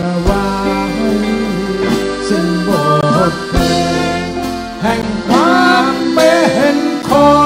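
Live band playing an instrumental passage: a sustained, gliding melodic lead line over acoustic guitar and drums.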